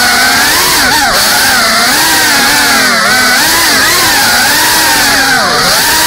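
GEPRC CineLog 35 3.5-inch ducted cinewhoop drone's motors and propellers whining. The pitch rises and dips constantly as the throttle changes.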